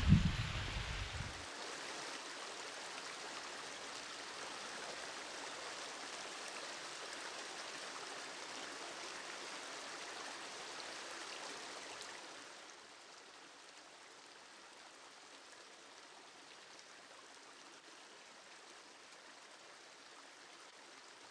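Steady hiss of running water, which drops to a quieter level about twelve seconds in. A brief low rumble is heard in the first second or so.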